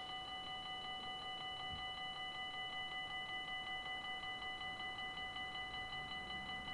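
Dutch level-crossing warning bell ringing continuously in fast, even strokes while the barriers are down, a sign that a train is approaching.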